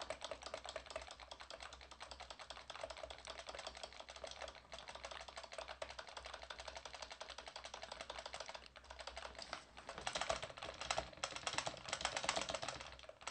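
Computer keyboard keys tapped quickly over and over: the Y and Enter keys pressed again and again to answer file-overwrite prompts one at a time. The tapping grows louder and harder about ten seconds in.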